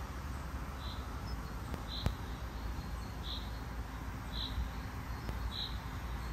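A cricket chirping, one short high chirp about every second, over a low steady rumble. A single click about two seconds in.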